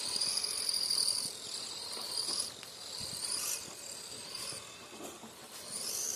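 Radio-controlled rock crawler's electric motor and gears whining, the pitch rising and falling as the throttle is worked in short pulls.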